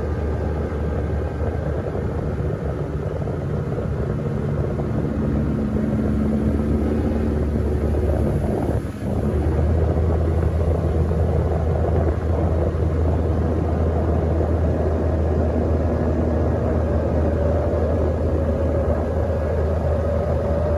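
Boat outboard motor running steadily at cruising speed, a constant low drone with a wavering higher tone over it, dipping briefly about nine seconds in.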